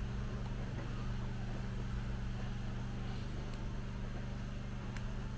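A steady low machine hum, even in pitch and level throughout, with two faint clicks about three and a half and five seconds in.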